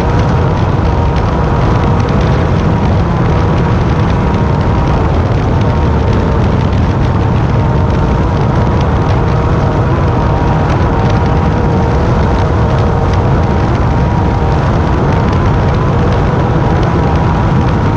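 Class 10 off-road race car driving at speed: a steady, loud engine drone with a wavering tone over a dense low rumble of wind and terrain noise.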